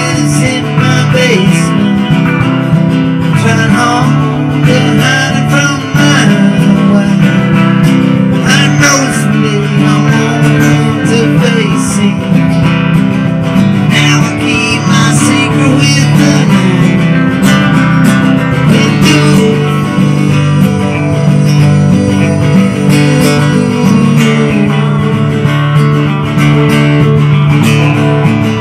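Live guitar duo: a strummed acoustic guitar under an electric guitar playing a lead line with bent, sliding notes.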